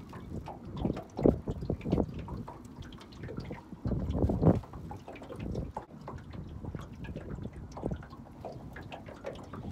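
Choppy river water slapping and lapping against a small boat's hull in irregular splashes, loudest about four seconds in.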